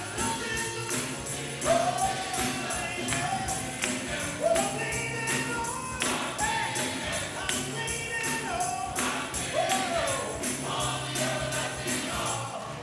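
Gospel choir singing, with a tambourine shaking a steady beat.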